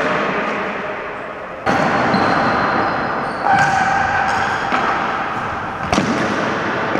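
Ball hockey play in a gymnasium: sharp knocks of sticks and the ball on the hardwood floor over an echoing din of play. It gets suddenly louder about a second and a half in.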